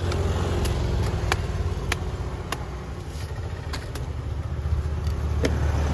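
A knife hacking open a palmyra palm fruit (nungu), with sharp chops roughly every two-thirds of a second, over a steady low hum.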